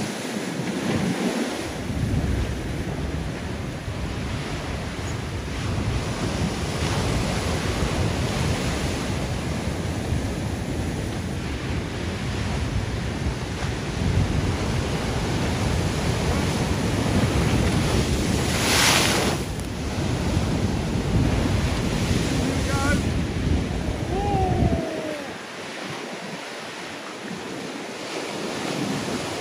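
Ocean swell breaking and washing over a rock shelf, under a heavy low rumble of wind on the microphone. About two-thirds through there is a brief louder hiss, and near the end the wind rumble drops away, leaving the surf.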